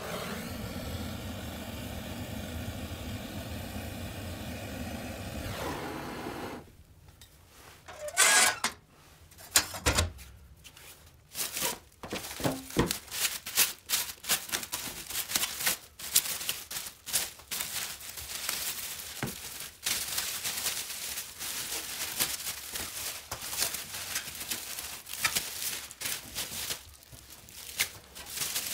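A handheld gas torch hisses steadily for about six seconds and then cuts off. After that comes a long run of irregular crinkling and tearing as plastic wrap is pulled off a painted motorcycle frame.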